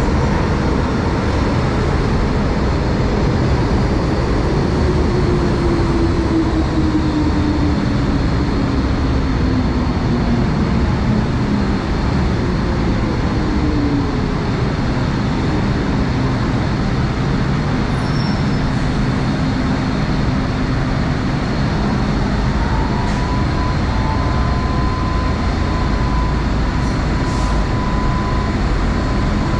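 MTR M-Train electric multiple unit running through a station without stopping: a steady rumble from the wheels and running gear, with a motor whine that glides down in pitch over several seconds and, later, a steady higher tone.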